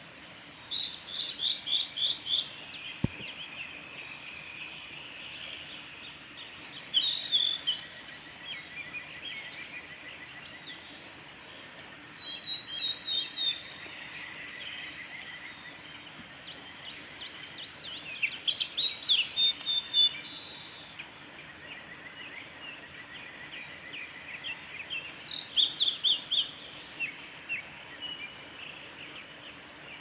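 Male blue-and-white flycatcher singing: five short phrases of quick, clear, high notes, one every five to six seconds, over steady background noise.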